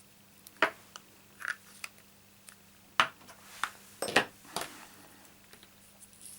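Light clicks and taps of small craft tools and paper being handled and set down on a tabletop: about eight sharp ticks, the loudest about three and four seconds in.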